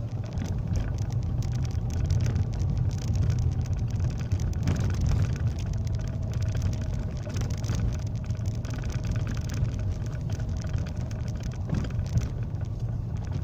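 Car driving down a steep, rough street, heard from inside the cabin: a steady low rumble of engine and tyres, with many small ticks and rattles over the road surface. A faint steady whine joins about halfway through.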